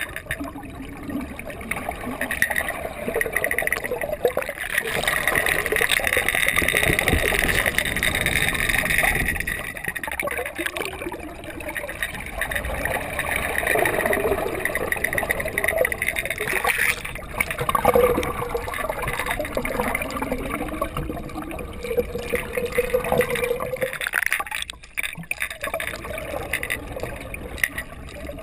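Water gurgling and sloshing, heard underwater in a swimming pool, muffled and uneven in level.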